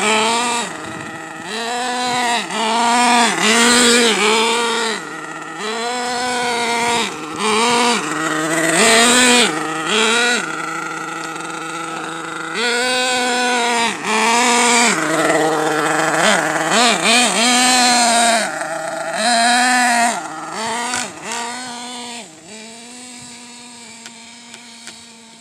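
Small nitro engine of an Ofna radio-controlled truck being driven in repeated throttle bursts, its pitch rising and falling each time. It grows fainter near the end as the truck runs off into the distance.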